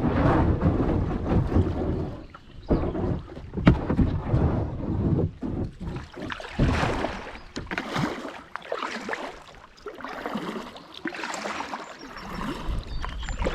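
Canoe being paddled through a shallow, rocky river: irregular paddle splashes and water sounds with a few sharp knocks, one louder about four seconds in. Low rumble of wind on the microphone during the first couple of seconds.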